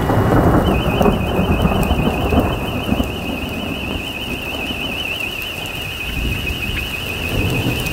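Thunder rumbling and dying away over the first three seconds, with steady rain underneath. An electronic alarm siren sounds throughout as a high, fast-warbling tone.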